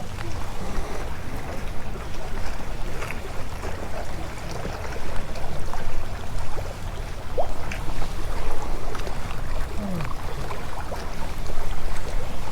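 Wake water from a passing boat slapping and lapping against the hull of a small fishing boat, over a steady low rumble.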